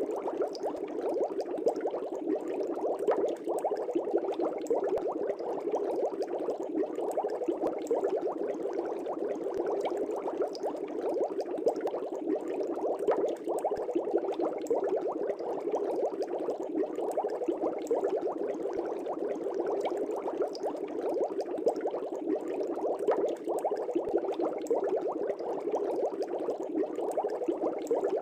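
Aquarium air bubbles rising and gurgling at the water surface in a steady, continuous stream, full of small pops.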